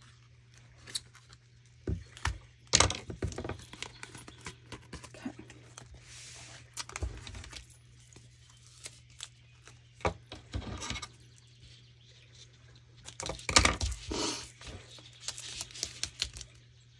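Hands working scrapbooking supplies on a craft table: scattered clicks, taps and rustles of paper and tape being handled, with a short tearing rasp about six seconds in and a busier run of knocks a little past the two-thirds mark.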